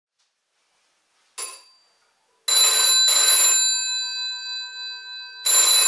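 GPO 746 rotary telephone's bell ringing in the British double-ring pattern: a brief tinkle, then two short rings close together about two and a half seconds in, the bell tones ringing on after them, and the next double ring beginning near the end.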